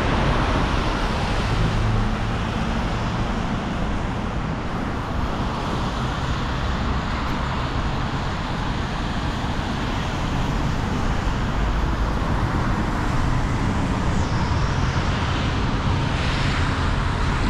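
Steady city street traffic on wet roads: the hiss of tyres on the rain-soaked street and the low rumble of passing cars.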